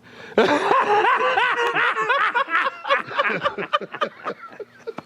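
People laughing: a burst of repeated giggling that starts about half a second in and trails off over the last couple of seconds.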